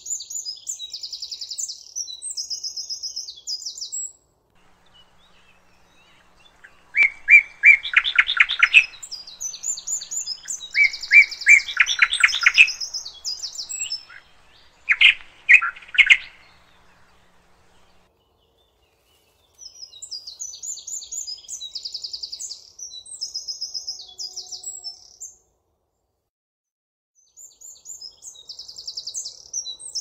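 Two songbirds singing. One gives a high, rapid trilled phrase that comes back four times, and a second bird gives a lower, stuttering, rattling song three times in the first half.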